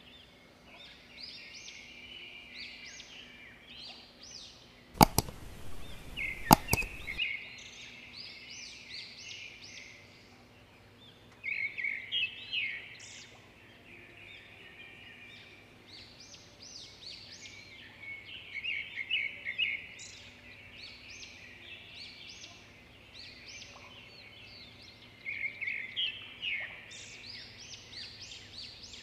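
Small birds chirping in repeated bouts of quick notes. Two sharp knocks come about five and six and a half seconds in.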